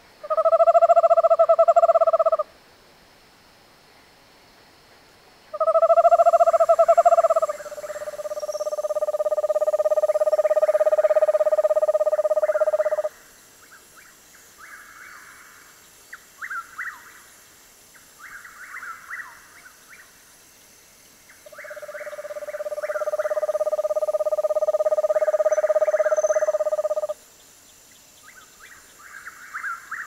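Eastern screech owl giving its level, monotone trill song: two short trills of about two seconds, the second running on into a long steady trill of about five seconds, then another long trill near the end. Short, scratchy, higher-pitched bursts come between the trills.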